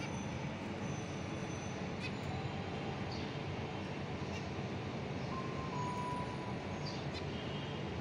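Steady low background rumble, with a few short, high chirps from caged zebra finches scattered through it.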